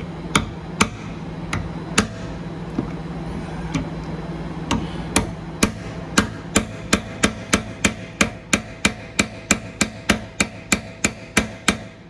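Hammer tapping a steel pipe nipple extractor (easy-out) into a broken plastic drain plug in an RV water heater's drain fitting, to make it bite. A few scattered taps, then from about halfway a steady run of quick light taps, about three a second, over a steady low hum.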